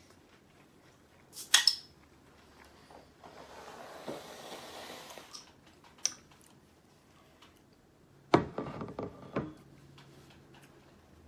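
A glass ginger beer bottle being handled at a table: a sharp click about a second and a half in as the cap is worked, a couple of seconds of soft noise, another click, then a cluster of knocks and clinks near the end as the bottle is set down on the wooden table.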